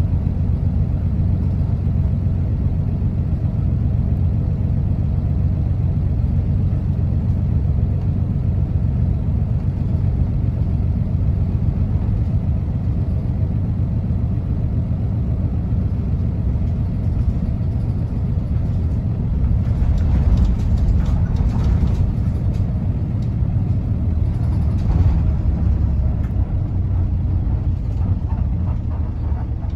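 Interior ride sound of an Isuzu U-LV diesel city bus with a Fuji Heavy Industries 7E body while driving: a steady low engine rumble with road noise. About two-thirds of the way through it briefly grows louder with a hissing, rattly edge for a couple of seconds, and once more for a moment a few seconds later.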